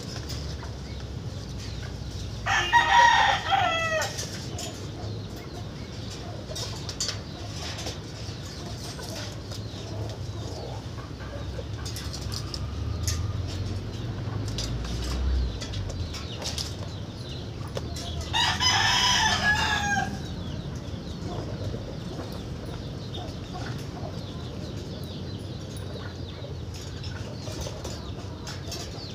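A rooster crows twice, about sixteen seconds apart, each crow about a second and a half long and falling away at the end, over a steady low background hum with scattered light clicks.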